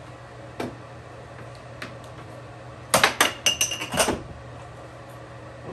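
Plastic air hockey puck and mallets clacking on a Brunswick air hockey table: two single knocks, then a quick rally of sharp clacks lasting about a second, over a steady low hum.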